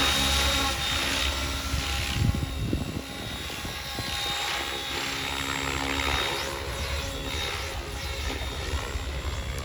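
Electric Oxy 5 HF RC helicopter in flight: a steady high motor and rotor whine over a lower hum, its pitch and loudness shifting as it moves, somewhat quieter from about three seconds in.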